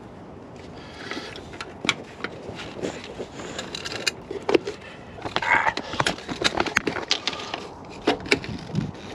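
Irregular plastic clicks and taps from hands working plastic condensate pipe and trace-heating cable, with two short rasps, about a second in and about five and a half seconds in, that fit cable ties being zipped tight around the pipe.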